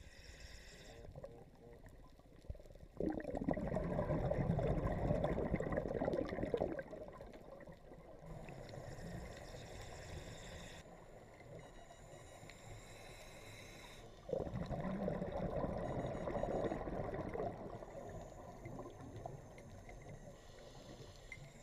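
Underwater bubbling and gurgling of a scuba diver's exhaled breath from the regulator, in two spells of about four seconds each, with near-quiet between them.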